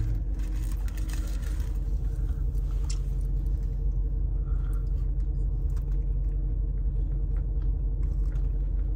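Steady low rumble of a running car heard from inside the cabin, with a faint steady hum. A few faint clicks of someone biting and chewing food sit on top.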